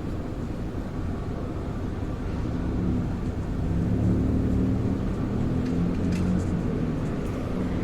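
Low engine rumble heard from inside a bus. A deeper engine drone grows louder from about two seconds in, then eases off toward the end.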